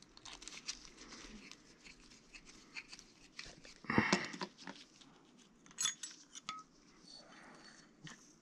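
Gloved hands handling small parts on a wooden board: soft rustling and light clicks and taps, with a louder knock about four seconds in and a short clink about six seconds in.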